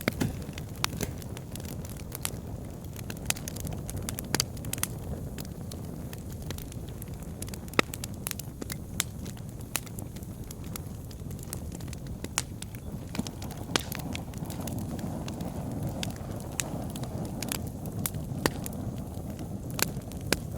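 Wood burning in a fireplace: a steady low rumble of flames with sharp crackles and pops at irregular moments, one louder snap about eight seconds in.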